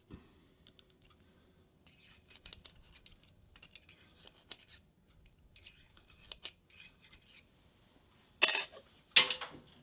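Light clicks and scratchy handling noises of metal parts and tools being set up at the stopped milling machine, with two louder, short scraping bursts near the end.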